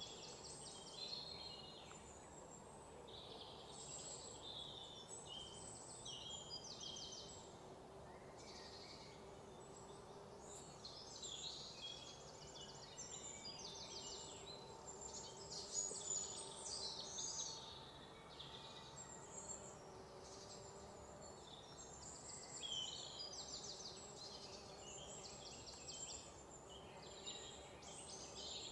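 Faint outdoor background of small birds chirping and trilling, with many short high calls overlapping throughout and a slightly louder burst of calls about halfway through.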